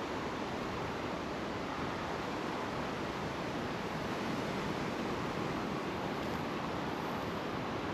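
Steady rush of river water running high, an even, unbroken noise.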